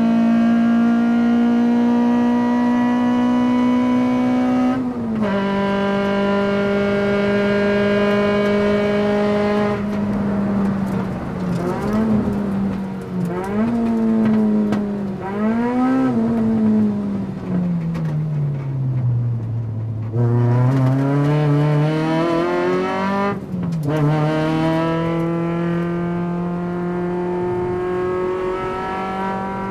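Cabin sound of a Toyota Echo's tuned 1NZ-FXE 1.5-litre four-cylinder, on individual throttle bodies and a 4-1 manifold with 3-inch exhaust, pulling hard at high revs on track. Revs climb in each gear with a quick drop at two upshifts, about five seconds in and again near twenty-three seconds; in between, the throttle lifts, a string of short blips follows, typical of the ECU's electronic-throttle rev-matching on downshifts, and the revs sink low before climbing again.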